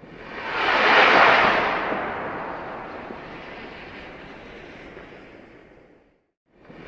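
Rocket launch sound effect: a rushing blast of noise swells to its loudest about a second in, then slowly fades away and stops near the end. Another launch starts right after.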